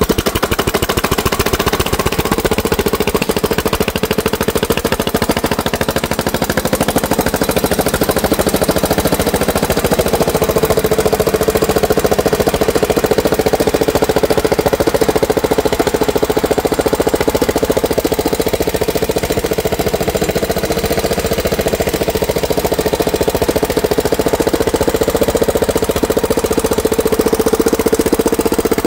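Briggs & Stratton Professional Series 19.5 hp lawn mower engine running steadily after being hotwired and started, with a rapid even firing beat.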